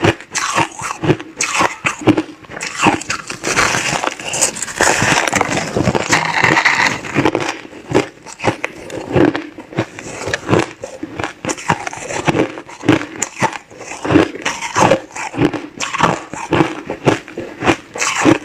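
Crushed clear ice being chewed close to the microphone: a quick, continuous run of sharp crunches and cracks.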